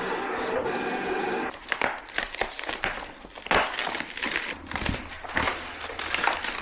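A steady hum that cuts off about a second and a half in, then crinkling and rustling of vinyl lettering and its backing/transfer paper being handled and peeled while a decal is applied.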